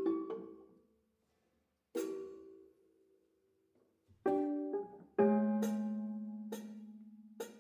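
Prepared grand piano playing sparse, separate struck notes. A passage dies away at the start and a lone note sounds about two seconds in, followed by a short silence. From about four seconds in comes a handful of struck notes, one of which leaves a low tone ringing on for about two seconds.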